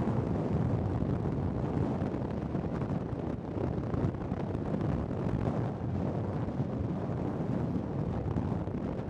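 Wind buffeting the camcorder microphone: a steady low rumbling noise that surges slightly.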